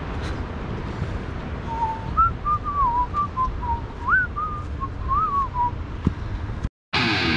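A person whistling a short wandering tune, with notes sliding up and down, over a steady low rumble.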